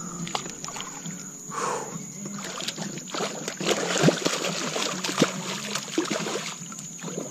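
A big hooked catfish thrashing and splashing at the water's surface beside a kayak, in a run of irregular splashes that is loudest about four seconds in.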